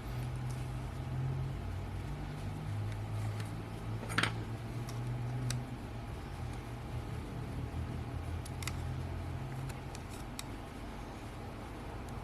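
Small sharp clicks of tiny lens parts and tools being handled during disassembly of a camera zoom lens, the loudest about four seconds in, over a steady low hum.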